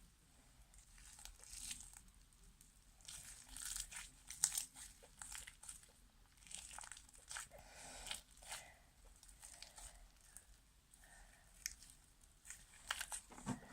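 Faint, irregular sticky crackling and squishing of homemade fluffy slime being kneaded and pulled by hand. The slime has too much foam in it and has gone pasty.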